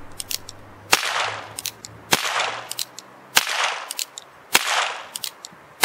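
Percussion caps snapped one after another on the nipples of an unloaded 1863 Remington New Model Army cap-and-ball revolver: a sharp crack about every second and a quarter, each with a short echo, and a light click of the hammer being cocked between cracks. Snapping caps on a clean revolver blows the oil out of the vent holes before it is loaded.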